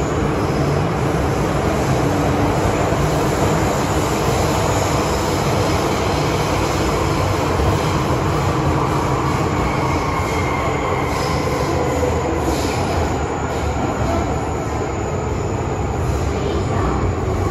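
An MTR M-Train electric multiple unit running, heard from inside the passenger car: a steady loud rumble of wheels on rail, with faint whining tones that drift in pitch.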